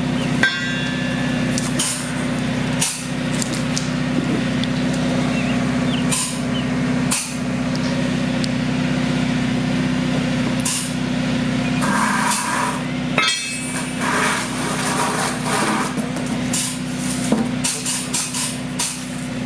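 Steady drone of running machinery, with scattered sharp knocks and clatter from hand tools on the concrete slab.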